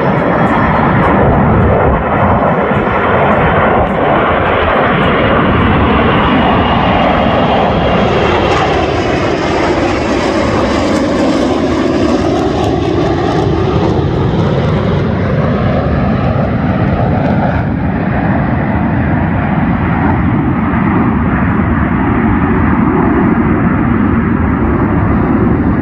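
F-35B Lightning II's single F135 jet engine roaring loudly and continuously as the fighter flies by. Its pitch sinks toward the middle of the pass, then rises again.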